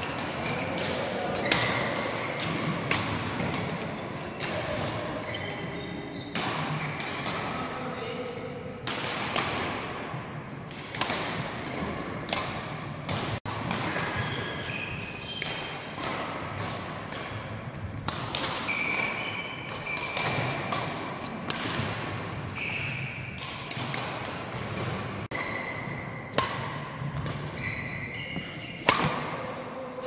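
Badminton rallies echoing in a large sports hall: repeated sharp racket hits on the shuttlecock, about one every second or so, with short shoe squeaks on the court floor and background voices.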